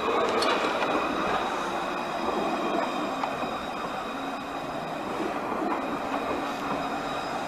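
Alstom Citadis electric tram passing close by on grass-covered track and moving away. Its wheels make a steady rolling noise on the rails, with several steady whining tones over it.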